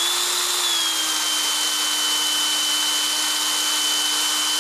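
Electric drill with a small bit boring a screw hole through a radio's sheet-metal chassis. The motor's whine rises slightly at the start, settles back, then holds steady.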